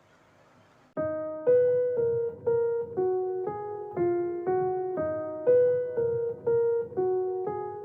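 Background music: a plain keyboard melody in a piano tone, single notes at an even two a second, each one fading, starting about a second in.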